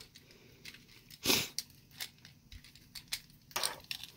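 Side cutters nipping and snapping small plastic tabs off a model truck's chassis: a handful of sharp little clicks and snaps, the loudest a little over a second in.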